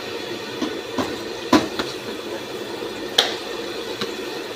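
Battered fish deep-frying in hot oil in a large iron karahi over a gas burner, a steady sizzle. A metal spoon gives a few sharp knocks against the pan and tub, the loudest about a second and a half in and another just after three seconds.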